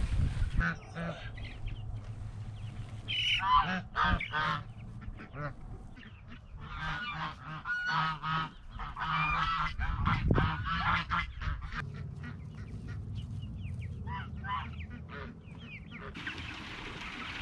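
Domestic geese honking, with many short calls repeated and overlapping.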